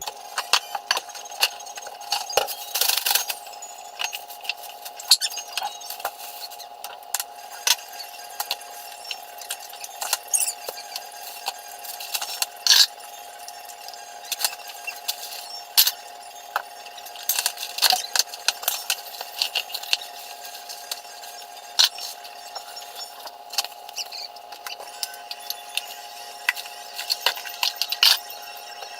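Clinks, knocks and clatter of glass jars, bottles and containers being handled while a refrigerator is emptied and cleaned, many sharp clicks in quick succession over a steady tone.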